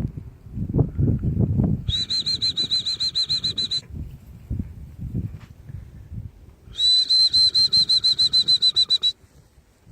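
A trilled dog-training whistle blown in two blasts, each about two seconds of a steady high trill pulsing about eight times a second. Softer low rustling and thumps come in between.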